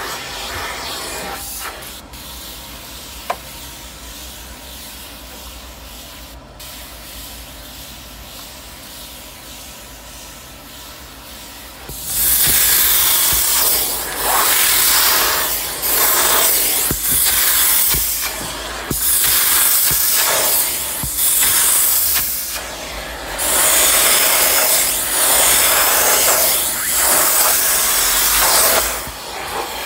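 Steam from a self-service upholstery steam cleaner hissing loudly onto a fabric car seat, starting about twelve seconds in and going in repeated bursts of a second or two. Before that there is a quieter, steady rushing noise from the machine.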